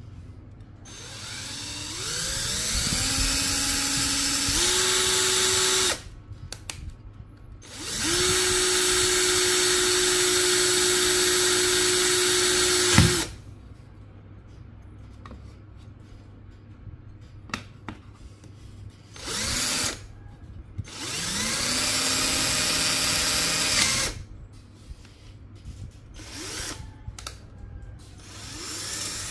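Bonchi cordless drill-driver with a twist bit boring into a piece of bone. The motor whines up to speed and runs in four bursts, the longest about five seconds, with small knocks in the pauses between them.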